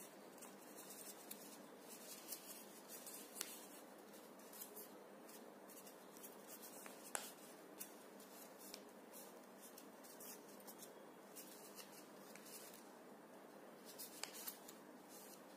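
Faint rustling and crinkling of origami paper being folded and creased by hand, with a few sharper crackles along the way.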